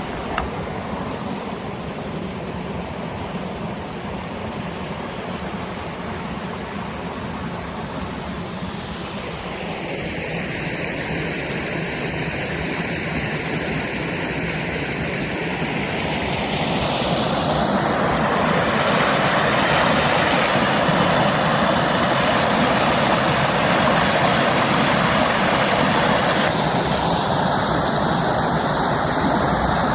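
Creek and waterfall water rushing as a steady, fairly loud roar that grows louder about halfway through.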